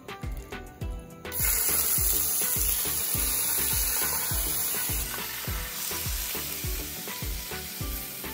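Raw shrimp hitting a hot oiled skillet: a loud frying sizzle starts suddenly about a second in and eases a little a few seconds later as they are spread with a wooden spoon. Background music with a steady beat runs underneath.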